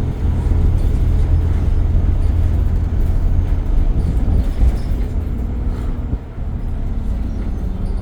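Alexander Dennis Enviro200 single-deck bus running, a steady low engine rumble with a hum of several steady tones, dipping briefly a little after six seconds.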